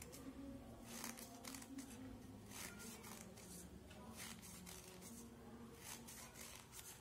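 Scissors cutting through folded paper: a run of faint, irregular snips, roughly one every second.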